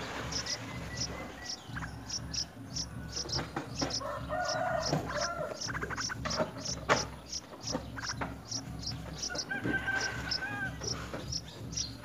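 Chickens clucking and a rooster crowing near the end, over an insect's steady high chirping in quick regular pulses, about three a second.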